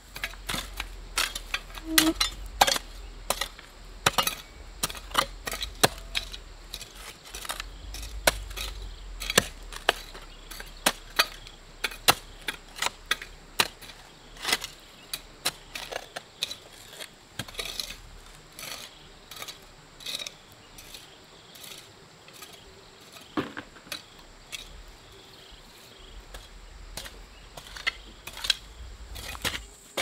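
Garden hoe chopping and scraping into soil: a run of sharp, irregular strikes, at times several a second. Near the start, stones knock together as they are moved by hand.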